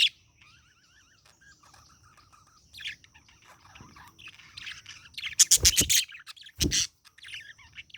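Budgerigar chattering: a soft wavering warble, then loud, sharp chirps, the loudest run about five and a half seconds in and another a second later.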